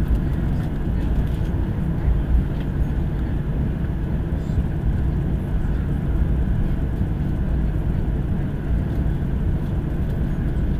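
Cabin noise of a Ryanair Boeing 737 taxiing: a steady low rumble of the idling jet engines and the rolling wheels.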